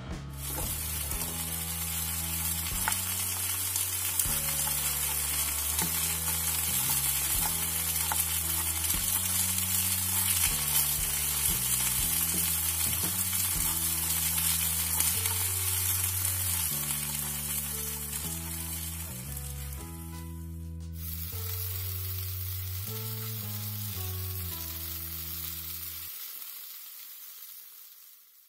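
Sliced vegetables frying in oil in a pan, a steady sizzle. It breaks off for a moment about two-thirds through, comes back weaker and fades out near the end. Background music with a stepping bass line plays underneath.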